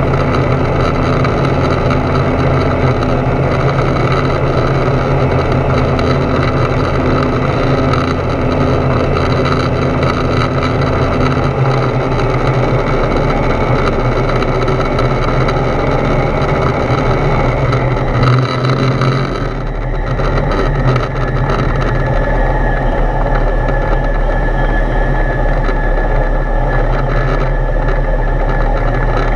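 Foxbat A22LS light aircraft's engine and propeller running steadily in flight, heard from inside the cockpit. About two-thirds of the way through the engine note changes and turns duller.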